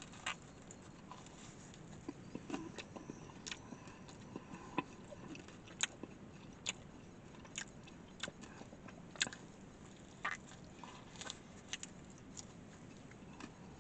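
A person biting into and chewing a small baked frozen pizza, heard as quiet mouth clicks and smacks at irregular intervals.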